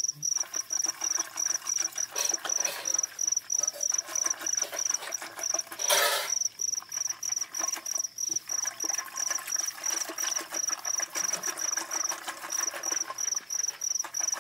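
A cricket chirping in a steady run of short, evenly spaced high chirps. Underneath is the swishing and slapping of curd being churned by hand, with a wooden churning stick spun in a steel pot. A brief louder rush of noise comes about six seconds in.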